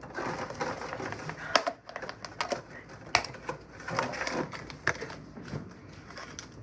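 Scattered light clicks and knocks of kitchen utensils and dishes being handled, with quiet murmuring underneath.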